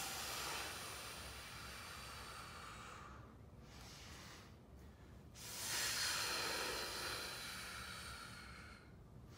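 A man's long, forceful exhales, two of them, each trailing off over a few seconds, with a short pause between them: hard breathing out to brace the core at the bottom of each high tension deadbug rep.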